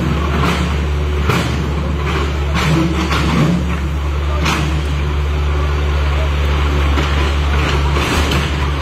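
An engine running steadily, with irregular sharp knocks or impacts over it.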